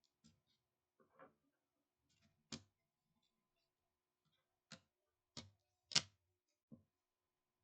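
Scattered light clicks and taps of small screws, tools and laptop parts being handled on a workbench, about six of them, the loudest about six seconds in.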